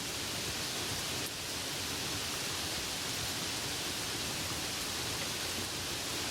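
Steady rain falling, an even hiss without separate drops or any break.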